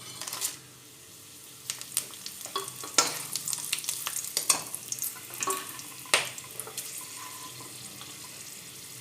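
Whole spices frying in hot mustard oil: a steady sizzle with many sharp crackles and clicks of spices and utensil against the pan in the middle seconds, settling to a quieter, even sizzle near the end.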